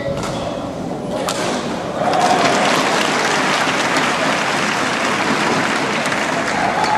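Spectators applauding: the clapping swells about two seconds in and holds steady.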